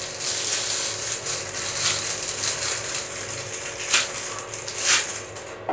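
Clear plastic packaging bag crinkling and rustling as it is handled and opened, with a few sharper crackles spread through it.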